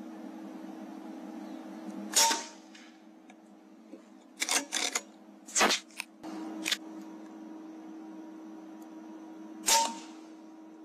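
Two shots from an AGT Uragan 2 FAC PCP air rifle, one about two seconds in and one near the end, each a sharp crack with a short ring. In between come a few quick sharp clicks, all over a steady low hum.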